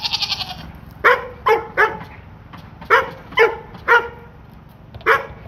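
A dog barking in short sharp barks, three quick barks, then three more, then one, just after a brief wavering goat bleat.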